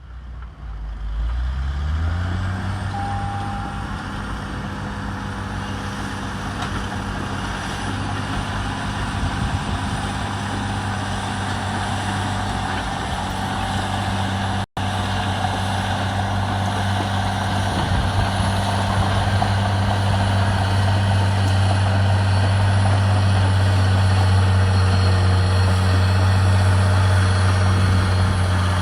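Caterpillar D9 bulldozer's Cat C18 diesel engine working under heavy load: it revs up over the first couple of seconds, then holds a steady deep drone that slowly grows louder. The sound cuts out for a moment about halfway through.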